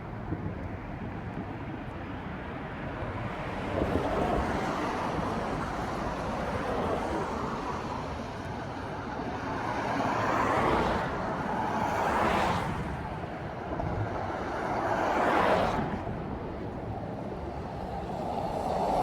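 Street traffic: cars passing one after another, each a swell and fade of tyre and engine noise over a steady background rumble.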